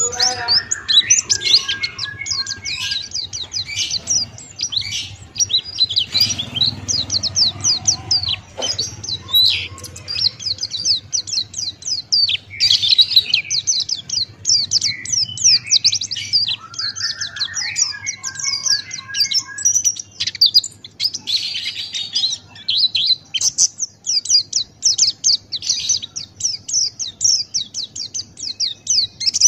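Buxtoni white-eye (pleci) singing a long, fast twittering song of high chirps run closely together, with only brief breaks.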